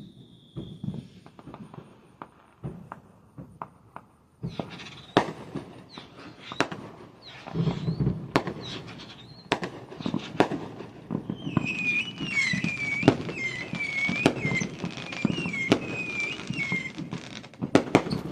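Fireworks and firecrackers popping repeatedly in sharp cracks, sparse at first and coming thick and fast from about four seconds in. A high, warbling whistle runs for about five seconds past the middle.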